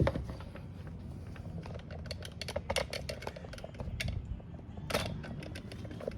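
Irregular small plastic clicks and taps of hands working an electrical connector loose from a car door's window motor, with a couple of sharper clacks a little before the middle and about five seconds in.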